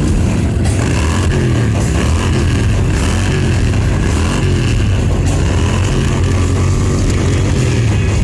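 Several motorcycle engines running together, their pitch rising and falling repeatedly as they rev or pass, over a steady low rumble.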